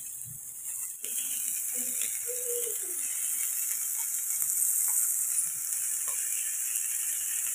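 Small whole turmeric-rubbed puthi fish frying in a little oil on a hot cast-iron tawa: a steady sizzling hiss that comes in about a second in, with a few faint ticks.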